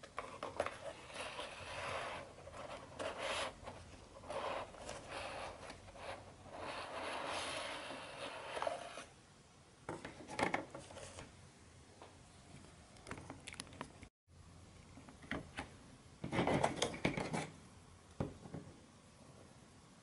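Folded cardstock parts of an origami combination lock rubbing and scraping as they are handled. A long stretch of rustling scrapes runs through the first half, then scattered clicks and a short, louder scraping burst a few seconds before the end.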